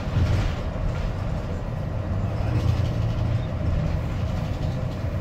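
Double-decker tour bus on the move, heard from aboard: a steady low engine and road rumble with a faint constant hum.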